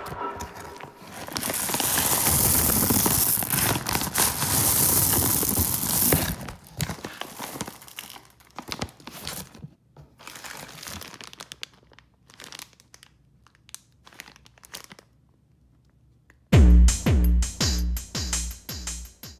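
Skittles candies rattling and pouring out of a crinkling plastic bag, a dense rush of noise for about five seconds that thins to scattered clicks of single candies and bag crinkles. Near the end comes a quick run of heavy low thuds in an even rhythm.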